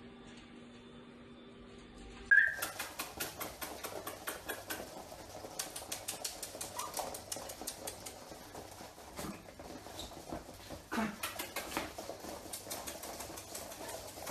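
A litter of puppies scampering on a wooden floor, their claws clicking fast and unevenly, with a few short high yips among the clicks. The clicking starts suddenly about two seconds in, after a faint steady hum.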